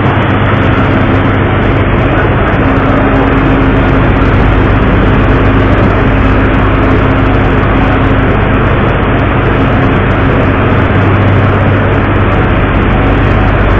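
Steady loud rumble of a ship under way at sea: a low engine drone with rushing wind and water noise over it, unchanging throughout.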